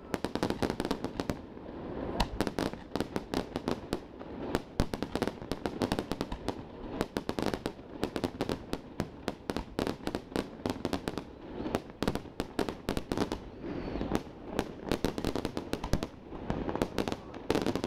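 A dense barrage of aerial firework shells bursting: a rapid, near-continuous string of overlapping bangs and crackles.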